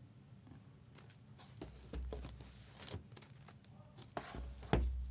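Hands handling trading card boxes and packs on a table: scattered taps and clicks, with low thumps about two seconds in and again near the end, where the loudest sharp click falls.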